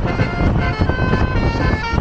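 Tunggal Jaya 'Kids Panda' tour bus's basuri telolet horn playing a quick melody of short notes that change pitch several times a second, over the low rumble of the moving bus and road.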